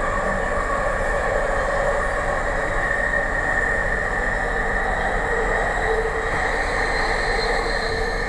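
Passenger train running at speed, heard from inside the carriage: a steady rolling rumble with a whine, and a higher whine rising in near the end.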